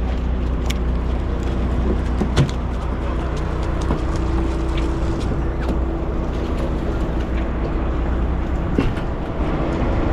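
Steady low engine drone of a sportfishing boat, with a few sharp clicks and knocks scattered through it.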